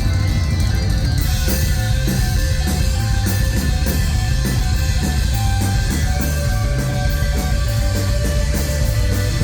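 Rock band playing live and loud: guitars over bass and drums, keeping a steady driving beat.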